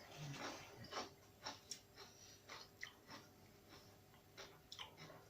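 A person chewing a crunchy tortilla chip: faint, irregular crunches about twice a second.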